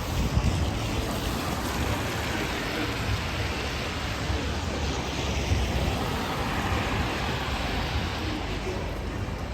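Steady city street noise in the rain: traffic on a wet road with rainfall and a low rumble.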